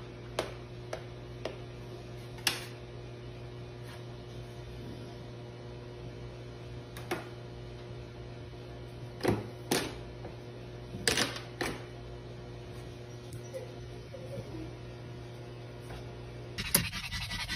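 Scattered sharp clicks and knocks from a plastic pet door's flap and frame as a dog paws and pushes another dog through it, over a steady low hum. Near the end a steady rushing noise takes over.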